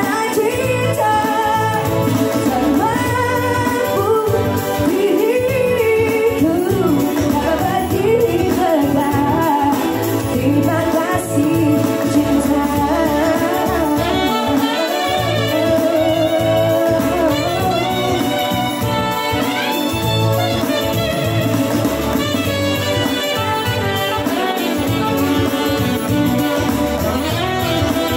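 Live band music: a woman singing an Indonesian pop song into a microphone, backed by a Yamaha arranger keyboard and a saxophone.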